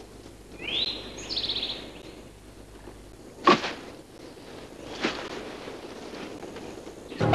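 A bird gives a short rising call broken into rapid notes, then a sharp thud about three and a half seconds in and a softer one a second and a half later: the corn snake dropping from the pine onto the leaf litter.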